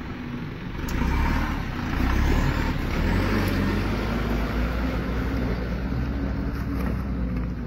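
Engine of a heavy vehicle running with a steady low rumble, getting louder about a second in and then holding.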